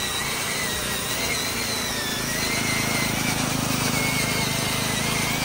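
Small electric motor of a homemade battery-powered ride-on toy truck running as it drives, a steady wavering high whine. A lower hum joins and grows louder about two and a half seconds in.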